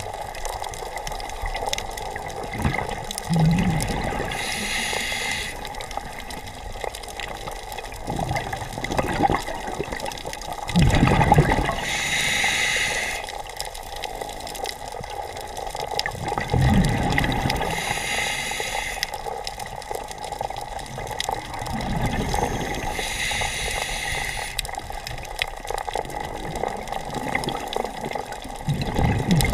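Scuba diver breathing through a regulator underwater: a hissing inhale followed by a rush of exhaled bubbles, repeating about every six seconds.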